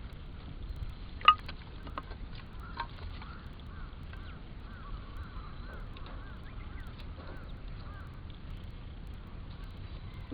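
Campfire under a grill crackling and popping, one sharp pop about a second in being the loudest, over a low steady rumble. A bird calls over and over in a quick run of short chirps through the middle.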